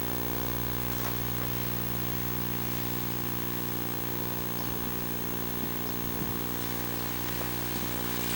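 Steady electrical buzz from the Sony Hi8 Handycam's recording: a constant low hum with a stack of evenly spaced overtones over a faint hiss.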